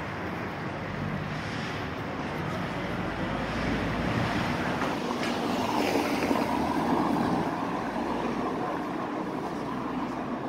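Outdoor city street ambience: a steady noisy rush of wind on the microphone mixed with distant traffic, swelling a little louder for a few seconds around the middle.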